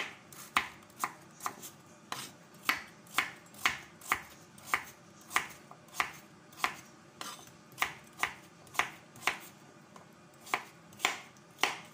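Chef's knife chopping peeled pumpkin into small cubes on a wooden cutting board. The blade knocks the board about twice a second in a steady rhythm.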